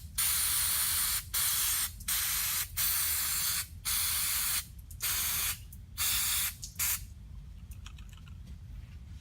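An aerosol cleaner can sprayed over a carburetor in about eight short hissing bursts, one after another. The spraying stops about seven seconds in.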